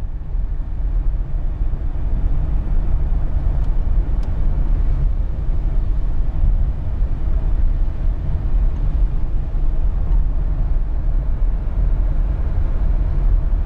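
A van driving on a wet highway, heard from inside the cabin: a steady low engine and road rumble with tyre noise from the wet pavement.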